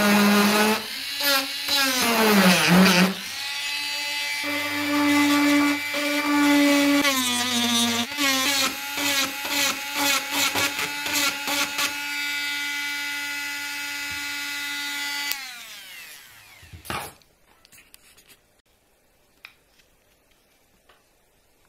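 Handheld rotary tool whining as it grinds and bores into deer antler, its pitch dipping and recovering as the bit bites. About fifteen seconds in it is switched off and winds down, followed by a knock and a few faint ticks.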